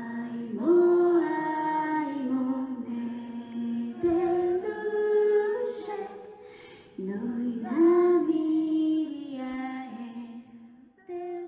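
A woman singing live into a microphone through the hall's sound system, in long held notes. Her phrases break off and start again about every three to four seconds.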